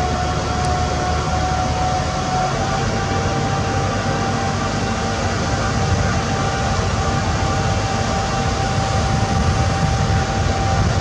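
Heavy lifting machinery running steadily: a low engine rumble under a constant high whine, from the crane lowering a ship's propeller blade.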